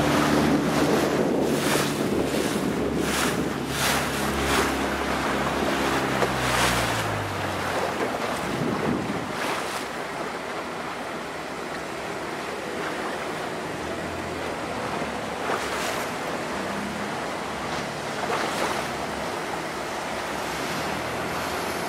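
A ship's horn sounding a deep, multi-toned note that falls in pitch and dies away about seven seconds in. Wind buffets the microphone over the sound of water throughout, and only wind and water remain after the horn stops.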